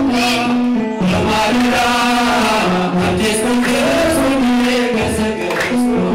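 Male singers of an Eritrean Orthodox church choir chanting a hymn into microphones, in long held notes that step up and down in pitch, with a short break about a second in.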